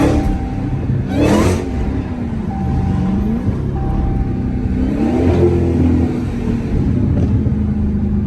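Supercharged 6.2-litre Hemi V8 of a Dodge Hellcat revving, its pitch rising and falling several times. There are short loud rushing bursts at the start and about a second in.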